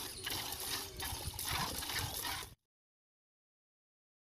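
Milk squirting from a cow's teats into a plastic bucket during hand milking, in rhythmic hissing spurts about two or three a second. A little over halfway through, the sound cuts off suddenly to complete silence.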